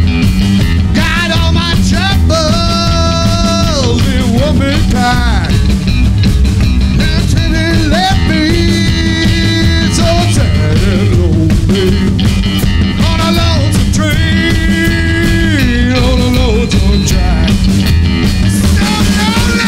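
Live blues-rock band playing, with electric guitar, drum kit and upright bass keeping a steady beat. Over them a lead line holds long notes that bend up into pitch and slide down out of it, three times.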